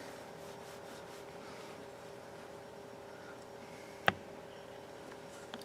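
Quiet room tone with a faint steady hum, and a single sharp click about four seconds in.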